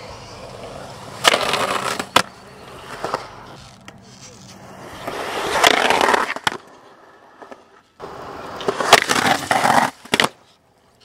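Skateboard urethane wheels rolling on smooth concrete, with sharp clacks of the board popping and landing. Three swells of scraping come as the board grinds on concrete coping and a ledge. The sound cuts off suddenly twice.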